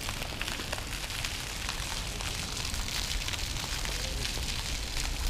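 Outdoor street ambience on a walking camera's microphone: wind buffeting the mic as a steady, unsteady low rumble, under a crackling hiss with scattered faint clicks.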